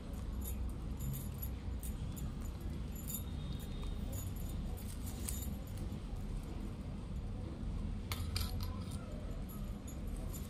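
Stacked metal bangles on the weaver's wrist clink and jingle against each other as her hands work stiff plastic wire strips, with scattered light clicks from the plastic. A cluster of jingles comes near the end, over a steady low rumble.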